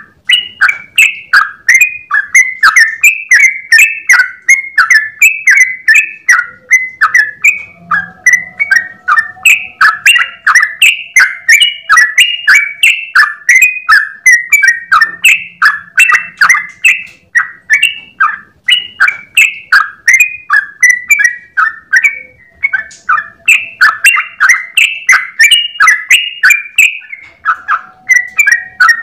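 Yellow-vented bulbul (trucukan) singing a long, unbroken 'ropel' song: quick chattering notes, several a second, running on with barely a pause.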